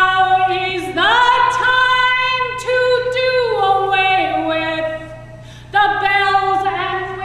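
A woman singing unaccompanied: long held notes that step downward in pitch, breaking off for about a second near the five-second mark before starting again. A steady low electrical hum runs underneath.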